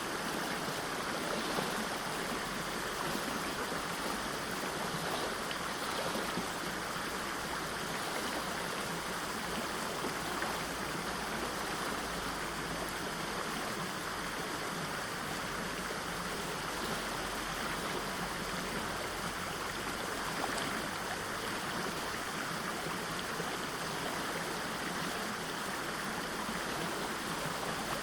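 River water rushing over a waterfall, heard from mid-distance: a steady, even rush without splashes or breaks, its sharpest highs softened by the distance.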